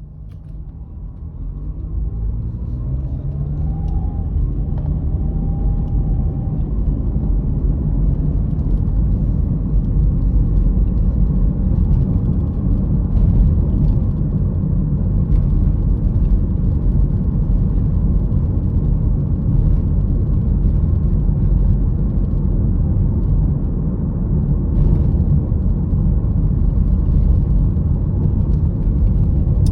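Car engine and road rumble heard from inside the cabin: the engine note rises as the car pulls away and gathers speed over the first few seconds, then settles into a steady low rumble of cruising.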